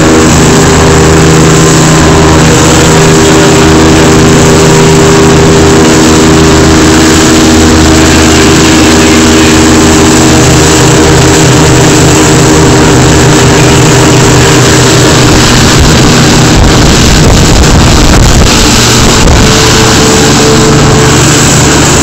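Motorboat running at speed: a steady engine drone under loud rushing water and spray, very loud throughout. The engine tone fades into the rushing noise midway and comes back near the end.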